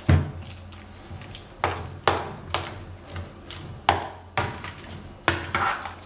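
A spoon mixing a thick mashed-potato mixture in a plastic bowl: irregular knocks and scrapes against the bowl about once a second, with soft squishing in between.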